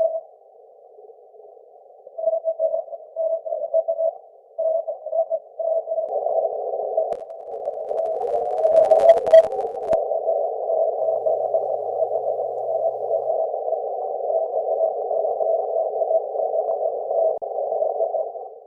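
Morse code (CW) on the 6-metre band, heard through a radio receiver's narrow audio filter as a keyed tone near 600 Hz, rough and hissy from auroral propagation. From about six seconds in, a denser hiss fills the passband between the keyed characters, with a brief click a few seconds later.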